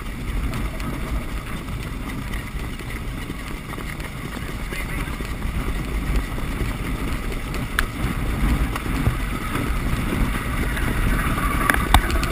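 Wind rumbling on a sulky-mounted camera as a trotter pulls the sulky along the sand track at speed, a steady rushing noise with a few sharp clicks near the end.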